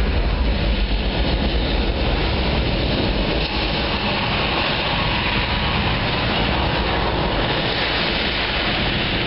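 Saturn V launch sound played loud through a theatre's sound system: a steady, dense rocket-engine rumble with strong deep bass.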